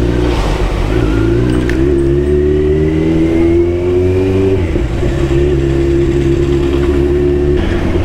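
Motorcycle engine and exhaust accelerating under load, its pitch climbing slowly, dropping suddenly at an upshift a little before five seconds in, then holding steady.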